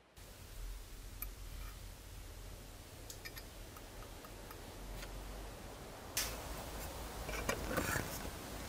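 Scattered small clicks and taps of metal tools handling a thin copper ashtray. Near the end comes a short scrape and then a quick run of clicks as pliers close on the bent copper tab.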